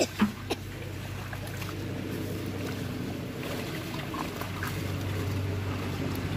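A motor running steadily with a low hum that grows slightly louder toward the end. Three sharp knocks come in the first half second.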